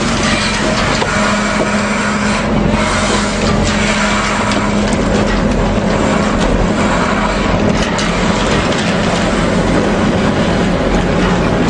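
Steady, loud drone of engines and machinery with a constant low hum and a few scattered knocks, from cargo being unloaded onto a truck.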